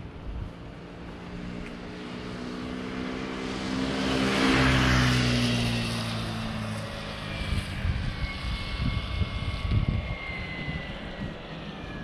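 A motor vehicle passing close by: its engine note and tyre noise swell to a peak about four to five seconds in, then fade as it moves away, the pitch dropping as it goes.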